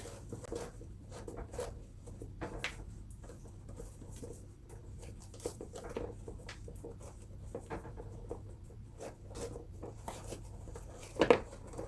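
Light rustling and small scattered taps from handling a new sneaker, with one louder knock near the end.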